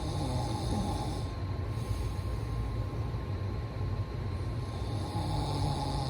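A person snoring: a low, rough rumble throughout, with a hissing breath near the start and again about five seconds later.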